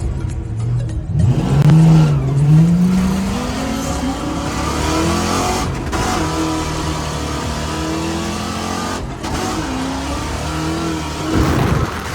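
Drift car engine revving hard, its pitch rising and falling as the throttle works, over a steady hiss of tyre noise. It is loudest a second or two in and swells again briefly near the end.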